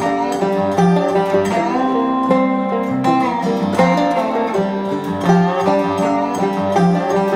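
Instrumental background music with plucked strings in a bluegrass style, a continuous run of picked notes.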